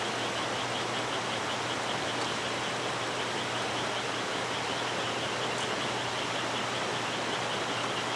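Valley stream flowing, a steady even rush of water. A fast, regular high-pitched chirping pulses over it.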